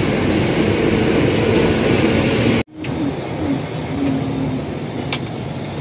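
Steady engine and road noise heard inside a moving vehicle. It cuts off abruptly about two and a half seconds in and resumes at a lower level, with a single brief click near the end.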